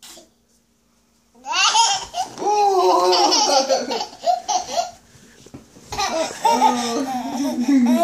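A toddler laughing hard in high-pitched bursts, starting about a second and a half in, with a short break near the middle before laughing again.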